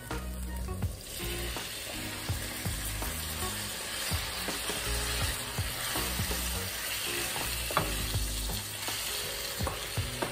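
Chicken hearts sizzling as they hit hot oil with fried onions and curry in a stainless steel frying pan, the sizzle building about a second in and holding steady. They are stirred with a wooden spoon, with light scattered knocks of the spoon against the pan.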